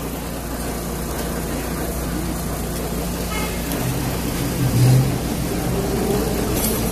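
Lisbon tram running along street track, a steady rumble of wheels and motor with a louder low hum about four to five seconds in.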